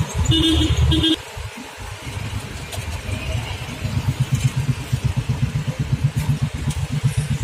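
A vehicle horn honks twice in quick succession, then an engine idles with a fast low pulsing, heard from inside a taxi cab stopped in traffic.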